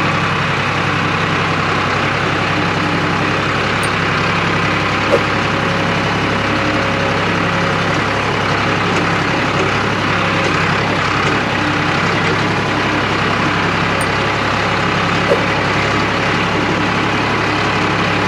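Heavy vehicle engine running steadily at a constant speed: a low, even hum with a wide rushing noise over it and no revving. Two brief clicks, about five and fifteen seconds in.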